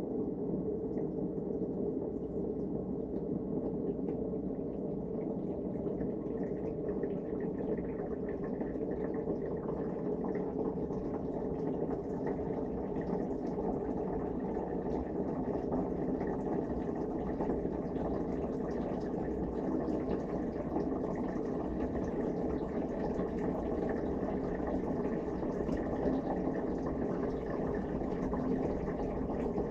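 Dishwasher running its wash cycle, heard from inside the tub: a steady, muffled churn of pumped water with no pauses.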